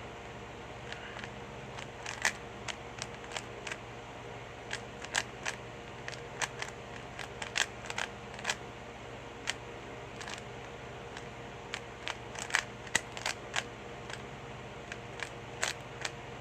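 Plastic 3x3 Rubik's cube being turned quickly by hand: irregular clicks and clacks of the layers snapping round, a few a second in uneven bunches, over a steady low hum.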